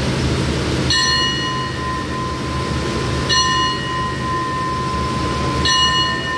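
Station bell struck three times, about two and a half seconds apart, each stroke ringing on until the next, the signal for the stopped express train to depart. A steady low hum from the standing train runs underneath.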